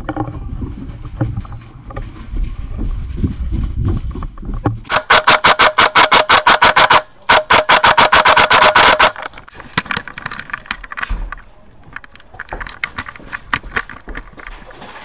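Airsoft rifle firing two loud full-auto bursts of about two seconds each, around ten shots a second, with a short break between them. Before them there is low rumbling of movement, and fainter single shots from other guns follow.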